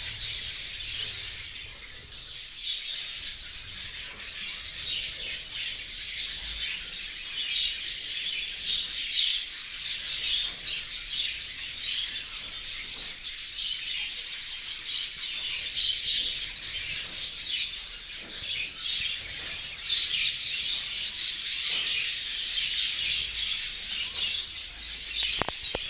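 A flock of budgerigars chattering and chirping without pause, many birds calling over one another.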